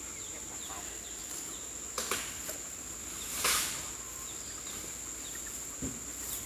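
Steady high-pitched drone of insects, with faint short chirps repeating over it. A sharp click comes about two seconds in and a louder short burst of noise about a second later.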